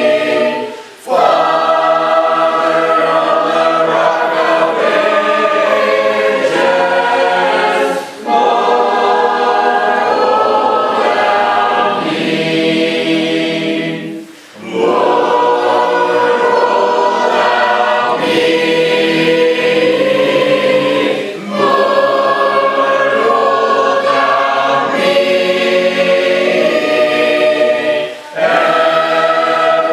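Congregation singing a hymn a cappella in four-part harmony, with no instruments. The phrases are sustained, and the singing dips briefly between them about every seven seconds.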